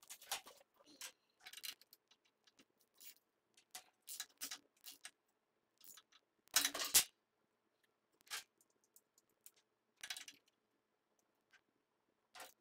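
Hand ratchet with a socket on a swivel clicking in short, irregular runs, with metal clinks from the tools, as the bolts of a Harley Dyna's rear engine mount are tightened. The loudest run is about seven seconds in.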